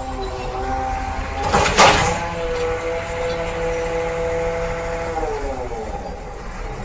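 A truck crane's diesel engine runs steadily, with a loud crash about a second and a half in as the tipped crane drops back onto its wheels. Near the end the engine's pitch falls away.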